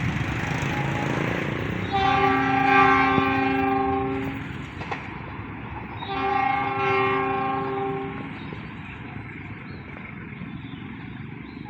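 Indonesian train sounding its multi-tone air horn in two blasts of about two seconds each, the second starting about six seconds in, over the rumble of the passing train, which fades away near the end.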